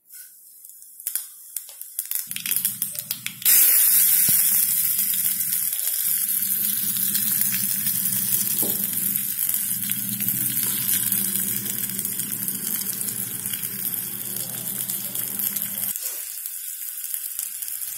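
Seeds crackling in hot oil in a small steel pot. About three and a half seconds in, chopped onions go in with a sudden loud sizzle that keeps frying and slowly eases off.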